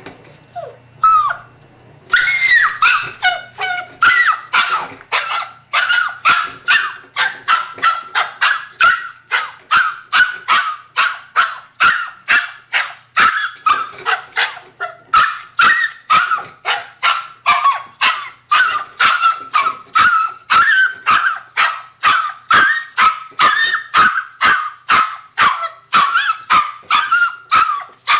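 Puppy barking without pause, short high-pitched yips at about two a second, after a couple of single yelps in the first two seconds.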